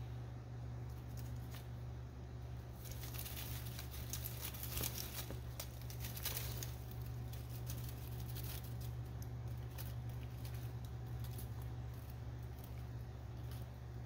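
Dry leaf litter rustling and crackling, with a dense run of sharp clicks and snaps about three to seven seconds in and scattered ones after, stirred by a feeding snake and metal feeding forceps; a steady low hum underneath.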